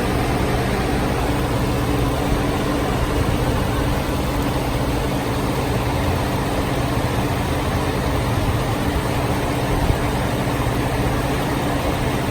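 Ford F-150 pickup engine idling steadily, running normally with no sign of its intermittent no-start fault.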